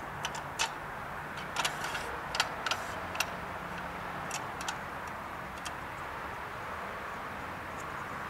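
Scattered sharp clicks and light knocks from the chainsaw and its Timberjig mill frame being handled and lined up on the wooden guide rail, mostly in the first five seconds, over a steady background hiss. The saw is not running.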